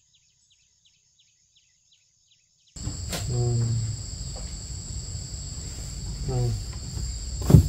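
Crickets chirping with a steady high trill, faint at first and then suddenly much louder about three seconds in, over a low rumble. A short low voice sound comes twice, and a sharp knock near the end is the loudest sound.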